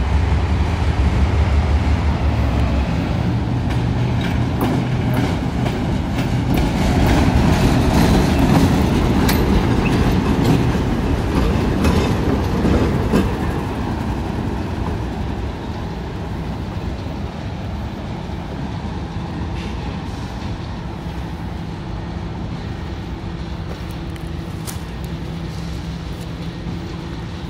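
Arkansas & Missouri Railroad train rolling past: a diesel locomotive's low engine hum at first, then the rumble of rail cars with clicking wheels over the rail joints. The rumble is loudest about a third of the way in and then slowly fades.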